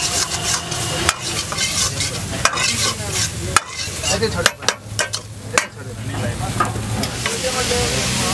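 Chicken Manchurian sizzling and frying in a wok, a steel ladle stirring and scraping it with frequent sharp clacks against the pan.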